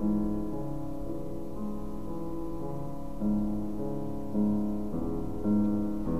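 Slow background piano music: held notes changing about once a second, with stronger notes struck about three, four and a half and five and a half seconds in.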